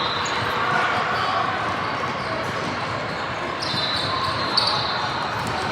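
Basketball game in a gym: a ball dribbling on the court over steady crowd chatter, with brief high squeaks, typical of sneakers on the floor, in the second half.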